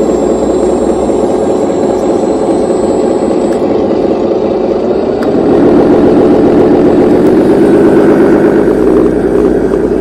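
Radio-controlled hydraulic excavator running while it digs: a steady engine-like drone that grows louder and fuller about halfway through.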